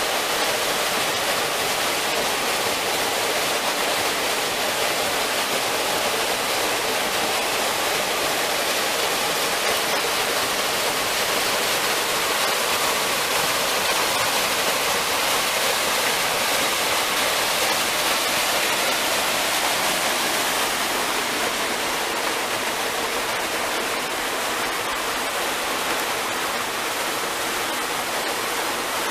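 Small waterfall pouring onto rock and into a pool, giving a steady rush of falling water. It turns a little softer over the last third, where shallow stream water runs over pebbles.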